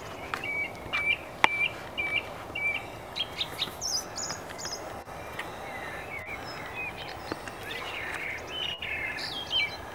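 Two songbirds singing against each other in a sing-off. A run of short, clear repeated notes comes first, followed by higher, more varied twittering phrases.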